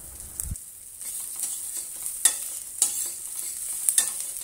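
Wood ear fungus, garlic, ginger and scallion sizzling in oil in a stainless steel pan, with a steady hiss, while a metal spatula stir-fries them, scraping and clicking against the pan several times.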